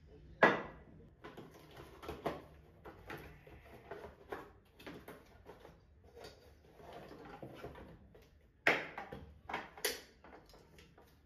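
Household handling noises: a string of knocks, clicks and clatters as objects are moved about. The loudest knock comes about half a second in, with another pair of louder knocks near the end.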